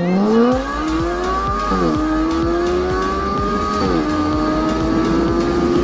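Car engine breathing through an aftermarket racing muffler, accelerating hard through the gears. The pitch climbs in each gear and drops at two upshifts, about two and four seconds in.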